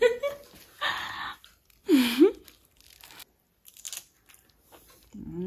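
Person biting into and chewing a shawarma with raw green chilli, crunching as they eat, with a short vocal sound about two seconds in.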